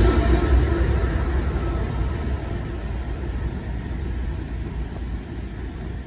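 Diesel-electric freight locomotive rumbling past close by, its engine and wheels fading steadily as it draws away.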